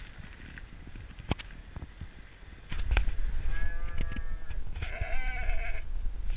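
Sheep bleating twice, about a second apart, over a steady low rumble.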